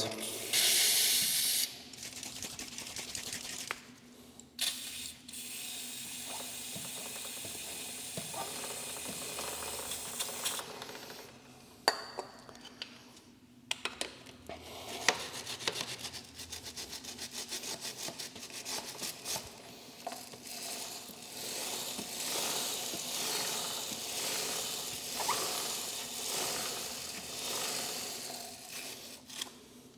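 Aerosol chain cleaner hissing onto a motorcycle drive chain in short sprays, then a stiff three-sided brush scrubbing the chain in quick rubbing strokes as the rear wheel is turned.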